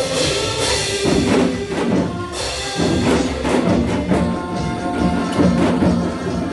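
Several janggu (Korean hourglass drums) struck in rhythm over a trot song backing track, the sharp drum strokes standing out above the music.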